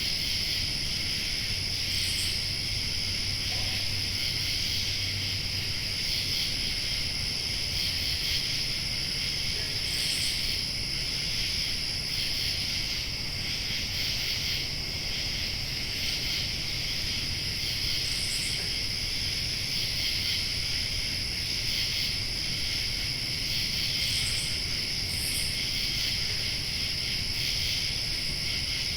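Summer-night chorus of crickets and other insects, a steady dense trilling. A thinner, higher insect line runs above it, with a brief high chirp every several seconds and a faint low rumble underneath.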